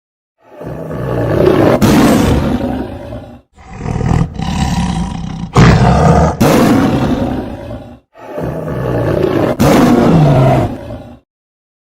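Tiger roaring: about four long, deep roars in a row, each a few seconds long and split from the next by a short dead-silent gap. The loudest roar starts abruptly about halfway through.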